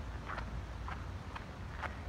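Footsteps on wet asphalt, about two a second, over a low steady rumble.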